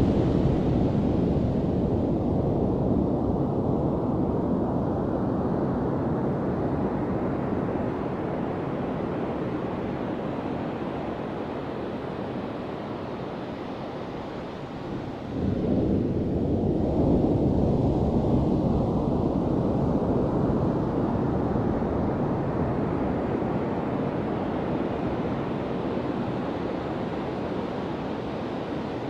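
Ocean surf on a sandy beach: a wave breaks and washes up the sand at the start and slowly fades, then another wave crashes suddenly about fifteen seconds in and fades away in the same slow wash.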